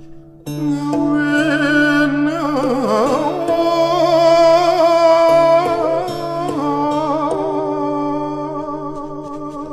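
Background music: a sung or vocal-like melody with vibrato enters about half a second in, over a steady low drone.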